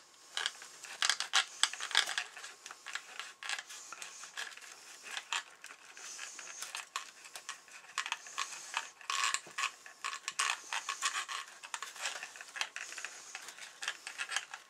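Hands pressing and smoothing filler on a walleye skin mount's belly, making a steady run of irregular small crackles, scratches and clicks.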